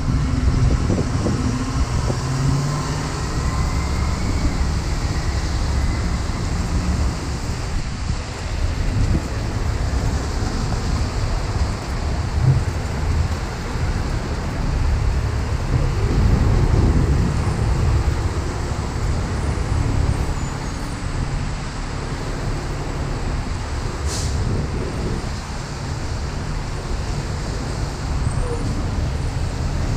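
Road traffic on a wet city street, with gusts of wind buffeting the microphone. A short hiss comes about three-quarters of the way through.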